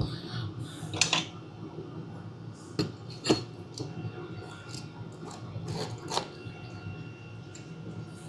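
Scattered metallic clinks and knocks, about half a dozen over several seconds, as the parts of a Bosch starter motor are handled while its case is aligned and seated.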